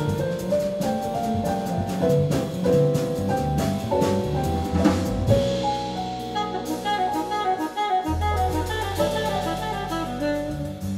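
Live jazz-fusion band playing: saxophone, piano, double bass and drum kit with cymbal strokes. From about halfway through, the bass sustains long low notes under the melody.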